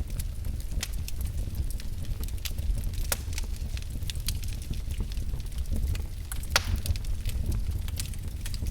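Wood fire in a fireplace crackling, with scattered sharp pops over a steady low rumble. One louder pop comes about six and a half seconds in.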